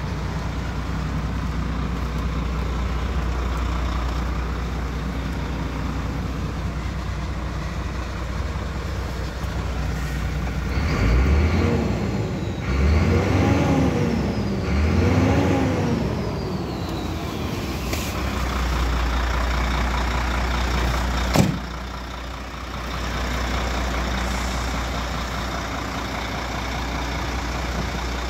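DAF CF75 310 truck's diesel engine idling steadily, revved three times in quick succession about halfway through, the pitch rising and falling with each rev; the dash shows an exhaust-system fault and reduced engine power. A single sharp knock about three quarters of the way through.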